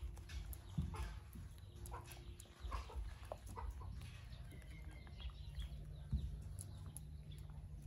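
A pig-tailed macaque grooms a man's hair. Close to the microphone there is soft rustling of the hair, with an irregular scatter of small clicks as it picks and parts the strands.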